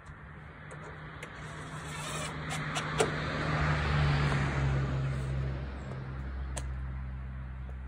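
A motor vehicle's engine hum with road noise that swells to its loudest about four seconds in and then fades, like a vehicle driving past. A few light clicks sound around the middle.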